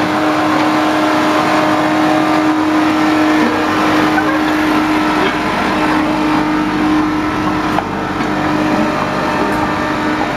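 Miniature railway train running, a steady mix of engine hum and rolling noise with one constant low tone.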